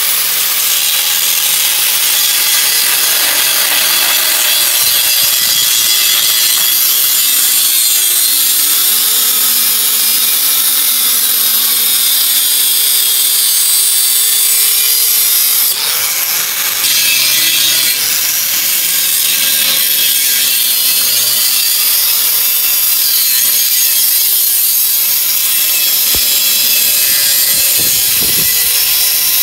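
Electric angle grinder with a cutting disc cutting through a rusty square steel tube: a loud, continuous high-pitched grinding, with the motor's tone wavering as the disc bites. The cut eases off briefly a little past halfway, then resumes.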